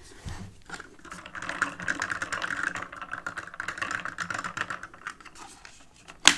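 A plastic straw stirring a fountain drink in a paper cup, making a quick run of rattling clicks for a few seconds. Near the end comes one sharp snap as the plastic lid is pressed back onto the cup.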